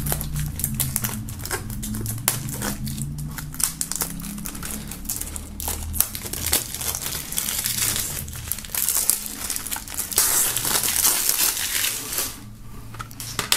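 Clear plastic shrink-wrap film being peeled off a CD jewel case and crumpled by hand: a continuous crinkling and crackling with small clicks, thickest about ten seconds in.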